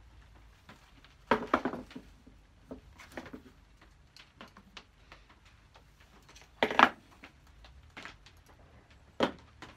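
Metal parts of a Stanley No. 71 router plane knocking and clinking against a wooden board as the plane is handled and stripped down: a quick cluster of knocks about a second and a half in, one loud knock just before seven seconds, and another near the end.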